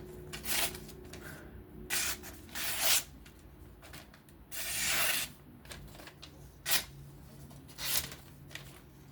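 A freshly sharpened folding knife's edge is tested with several short slicing strokes, each a dry rasping hiss of uneven length, one of them about a second long near the middle.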